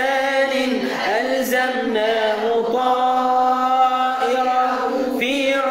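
A man chanting Quran recitation in Arabic in the melodic tajweed style, drawing out long held, slowly bending notes.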